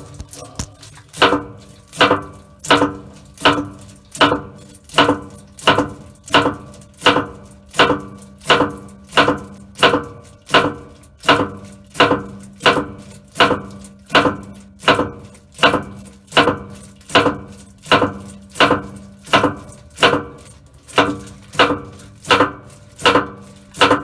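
Regular metallic clunks, about one and a half a second, each with a short ring, from inside the left chain well of a Case 1845C skid steer as the drive turns. The owner puts it down to a worn bearing on the jack shaft (cluster sprocket) that carries the drive between the hydraulic motor and the wheels.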